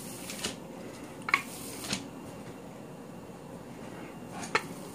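Rolling pin being pushed over a sheet of ground meat on paper on a counter: quiet rolling and pressing, with three light knocks, about a second in, shortly after, and near the end.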